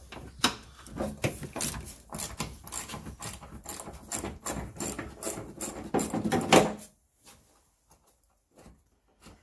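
Hand socket ratchet clicking in quick, uneven runs, with some knocks, as it backs off the nuts on the rear bumper's mounting studs. It stops about seven seconds in.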